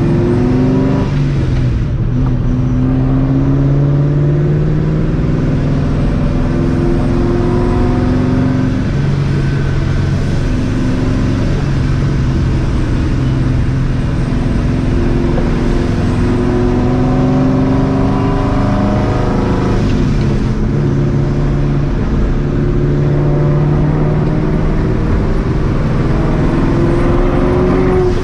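Straight-piped, Vortech-supercharged 2004 Mustang GT's 4.6-litre two-valve V8 pulling through the gears. The exhaust note climbs in pitch and then drops at each shift, several times over.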